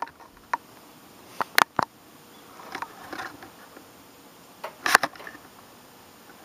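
A few short, sharp handling clicks and knocks at close range: one about half a second in, three in quick succession a little over a second later, and a cluster near five seconds, with soft rustling in between.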